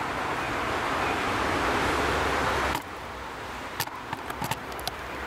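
Motorway traffic noise, a rushing roar that swells as vehicles pass, then cuts off abruptly about halfway through. A quieter background follows, with scattered faint clicks.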